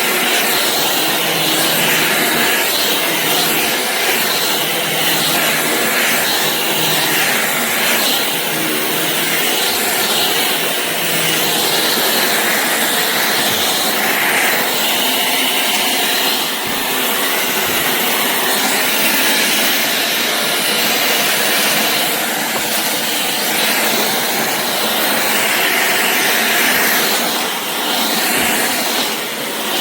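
Shark Clean & Empty cordless stick vacuum (BU3521) running steadily, its motor and suction making a continuous rushing noise.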